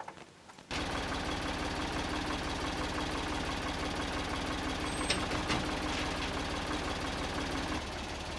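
Ford farm tractor's engine running steadily, starting abruptly about a second in, as its front-end loader lifts a load; a steady hum in the sound stops shortly before the end.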